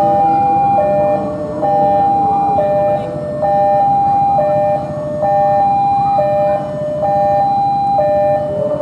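Railway level-crossing warning alarm sounding as a train approaches: an electronic two-tone signal alternating between a higher and a lower tone, each held just under a second, repeating steadily.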